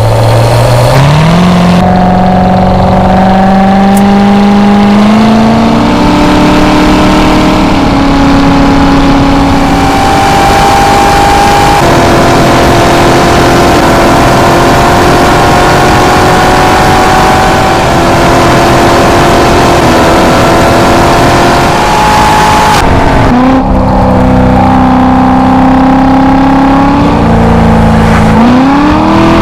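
Vehicle engine running loudly, its pitch climbing in steps as it speeds up, falling away sharply about two-thirds of the way through, then rising again near the end.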